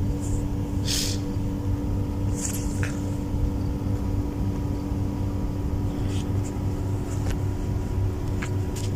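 Steady low mechanical hum with a constant drone, from machinery running near the moorings, with a few faint short clicks and hisses over it.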